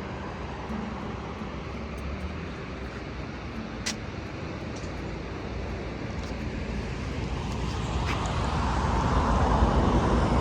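Steady engine and road noise of a moving vehicle, growing louder over the last couple of seconds, with a single sharp click about four seconds in.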